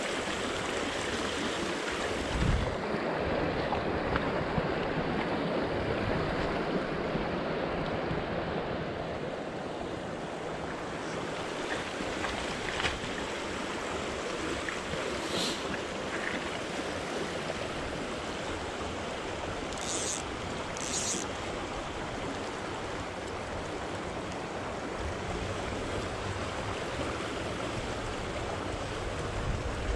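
Creek water rushing steadily over a shallow, stony riffle, with a few brief clicks and a dull thump at the start.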